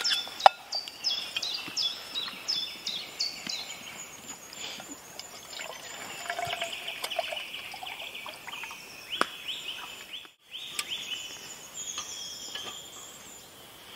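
Songbirds singing in woodland: a fast run of repeated high, falling chirps at the start and more song in the middle, with scattered light clicks and knocks of a small metal cook pot and stove being handled. The sound cuts out completely for a moment about ten seconds in.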